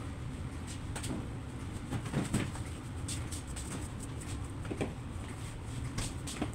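Black pepper powder shaken from a shaker bottle, giving a few scattered clicks and taps, over a steady low hum.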